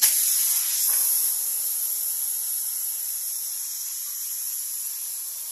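A steady high hiss that starts suddenly and slowly fades.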